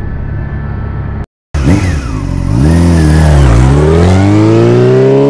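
A steady engine drone cuts off abruptly about a second in. After a moment of silence a loud engine revs, its pitch dipping twice and then climbing steadily as it accelerates.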